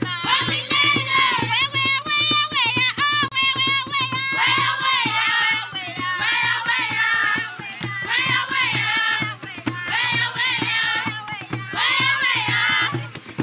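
Music: a voice singing a wavering, ornamented melody with no English words, over hand percussion and a steady low drone.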